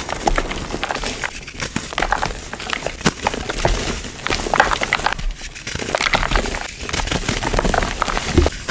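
Dense, irregular crunching and crackling of a crumbly material such as gym chalk or wet concrete mix being crushed and worked, many small crackles close together.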